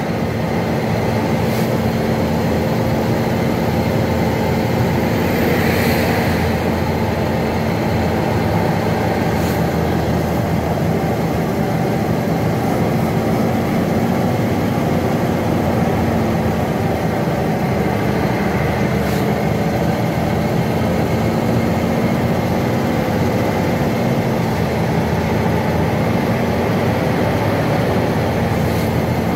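Heavy truck's diesel engine running steadily, heard from inside the cab, with a constant drone and road rumble as the loaded truck descends a steep mountain grade.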